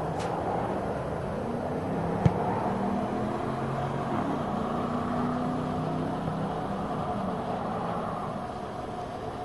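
A single sharp thump about two seconds in, a football being kicked, over a steady outdoor background with a low wavering engine-like hum.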